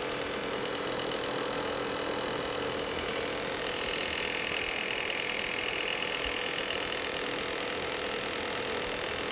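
A machine's fan running with a steady hum and a clicking noise, the weird noise the owner is complaining about. A higher whine comes in about three and a half seconds in and fades out by about seven seconds.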